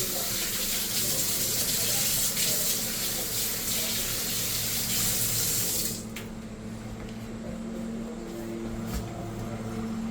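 Water running from a tap into a sink, shut off abruptly about six seconds in, followed by a few light clicks.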